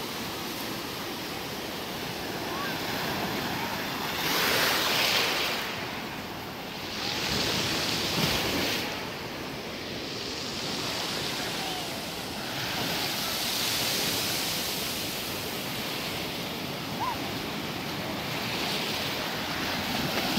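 Small surf washing in and out over a shore of coarse sand and small pebbles, a steady rush of water that swells with each incoming wave about every four or five seconds.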